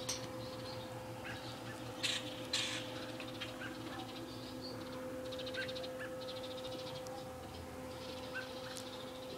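Birds calling: scattered short chirps and rapid buzzy chattering trills, over a steady low hum. Two sharp knocks come about two seconds in.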